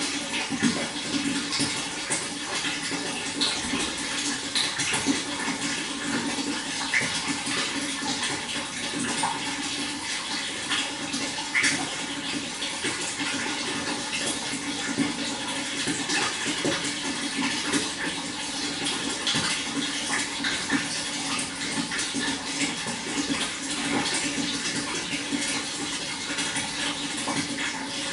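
Running water, splashing and trickling steadily, with many small droplet splashes.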